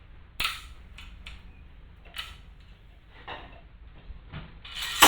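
Scattered metallic clicks and clinks as steel crane parts and pins are handled and fitted together, with a louder clatter of metal on metal near the end.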